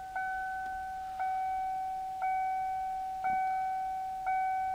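Ford Mustang's dashboard warning chime dinging evenly about once a second with the ignition switched on, each ding one clear tone that fades before the next.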